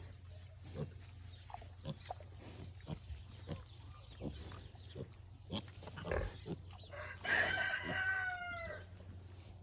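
Pigs feeding, with short grunts every half second or so, and about seven seconds in a chicken calling, one drawn-out pitched call of about a second and a half.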